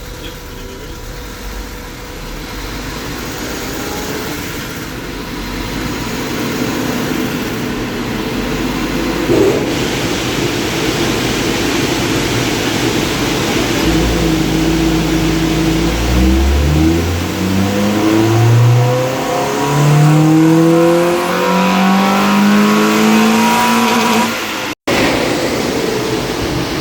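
Honda Civic's D-series four-cylinder engine doing a full-throttle power run on a chassis dyno, its pitch climbing steadily with engine speed through the second half. The sound breaks off suddenly near the end.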